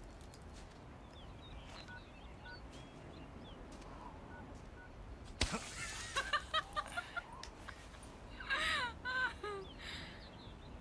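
Faint outdoor quiet with a few small chirps. About halfway through comes a sudden soft thump of a snowball striking a man's back, followed by a quick run of short, choppy vocal sounds and two falling cries.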